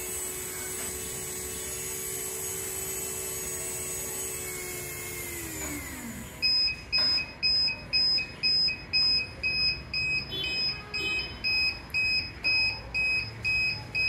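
Small DC gear motors of an Arduino robot car running with a steady whine that winds down and stops about six seconds in. Then a buzzer beeps about twice a second: the sleep alarm, set off because the wearer of the eye-blink sensor has kept his eyes closed.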